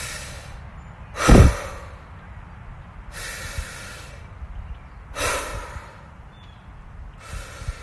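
A woman breathing deeply in and out through the mouth, a breathwork exercise: about five slow breaths, each a breathy rush, one every second and a half to two seconds, the second one the loudest.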